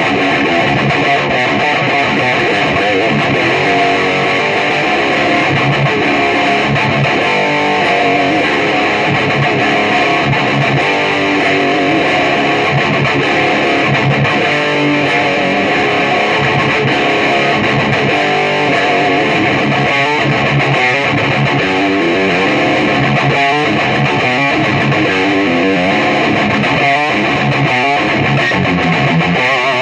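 Electric guitar played without a break through a Peavey Bandit 112, a solid-state combo amp with one 12-inch speaker.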